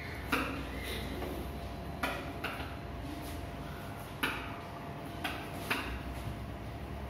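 Marker pen writing on a whiteboard: irregular sharp taps and short squeaky strokes of the tip on the board, about seven of them, over a steady low room hum.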